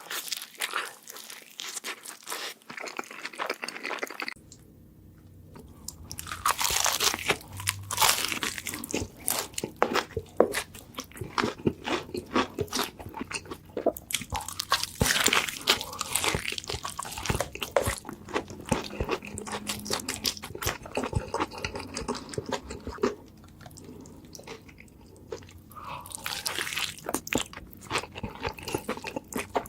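Close-miked bites and chewing of a burger: crisp crunching and wet crackling mouth sounds, with a short lull about four seconds in.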